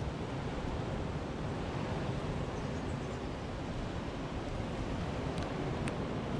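Wind blowing over the microphone: a steady rushing noise, strongest in the low end, with a couple of faint ticks near the end.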